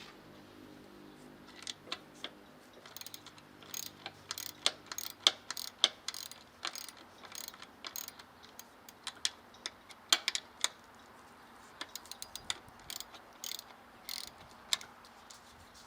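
Hand tools working on metal engine parts: irregular sharp clicks and clinks, with the loudest strikes around five and ten seconds in.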